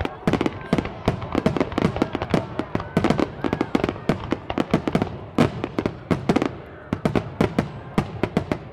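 Fireworks bursting in a rapid, dense barrage: many sharp cracks and bangs, several a second, overlapping one another.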